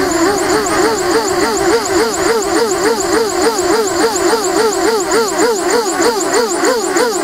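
QAV250 quadcopter's motors and propellers whining in flight, the pitch swinging up and down about four times a second as the craft oscillates in angle mode. The owner blames the wobble on the Cleanflight 1.11.0 firmware, and it grows worse with more throttle.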